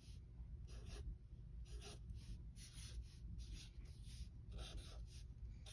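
Sharpie permanent marker drawing short strokes on sketchbook paper: about a dozen brief, faint scratches, one for each little mark.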